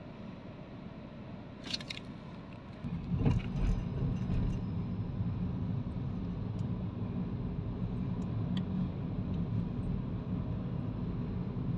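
Inside a car cabin: quiet at first with a brief rattle, then about three seconds in the car pulls away and a steady low engine and road rumble rises and holds, with a few small clicks.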